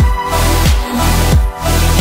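Electronic background music with a steady beat: a deep kick drum about every two-thirds of a second over sustained bass.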